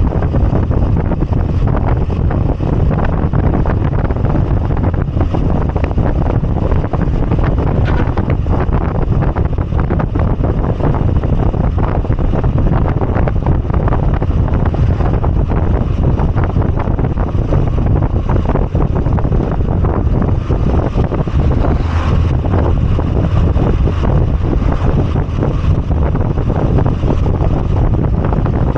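Moto Guzzi V85TT's air-cooled transverse V-twin running steadily on the move, with heavy wind noise buffeting the microphone.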